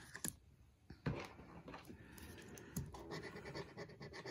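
Scratch-off lottery ticket being scratched: quick, short scrapes across its coating. They start about a second in after a brief pause.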